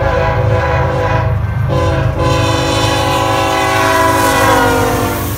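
Locomotive air horn sounding a chord of several tones over a low rumble, with brief breaks about two seconds in; the chord sags slightly in pitch near the end.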